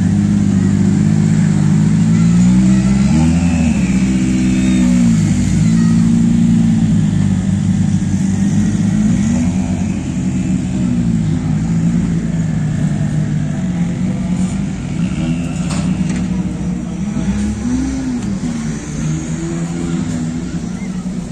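Rally2 cars' 1.6-litre turbocharged four-cylinder engines running at low speed, with short throttle blips a few seconds in and again near the end.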